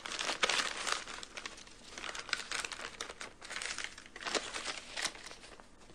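Sheets of paper rustling and crinkling as they are handled and unfolded, in irregular bursts with the loudest in the first second.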